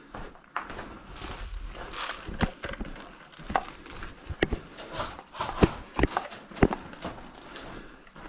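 Irregular footsteps and knocks of gear, a sharp knock every second or so.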